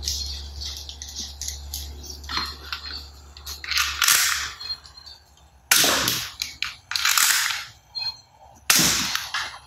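Toy gun firing: about four short, hissing shot sounds, each fading within half a second, roughly a second and a half apart.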